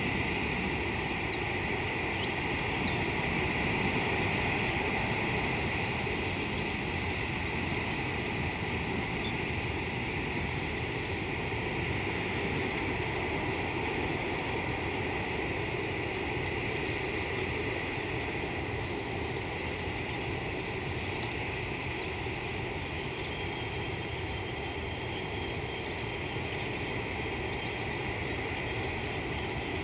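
Steady outdoor bush ambience: a continuous high drone over a low rumble, with no distinct animal calls.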